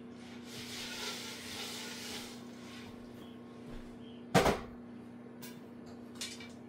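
Lidded pot of popcorn kernels in oil being shaken on a gas stove: the kernels rattle and slide inside for a couple of seconds. About four seconds in comes a single loud clank as the pot is set back on the burner grate. This is the shaking done once the kernels have started to pop, over a steady low hum.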